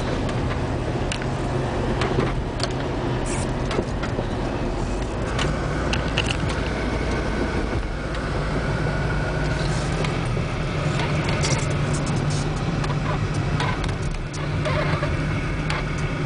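VW T4 Transporter's 2.5 TDI five-cylinder diesel engine running steadily, heard from inside the cab, with its note rising a little about halfway through. Light clicks and rattles from the cab sound now and then.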